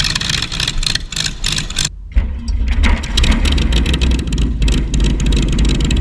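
Starter cranking the Stewart Mustang replica's V8 aero engine with a rapid clatter. About two seconds in, the engine is running with a low, steady sound and a fast ticking of firing pulses.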